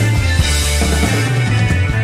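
Rock music with a bass line stepping between notes under dense guitar.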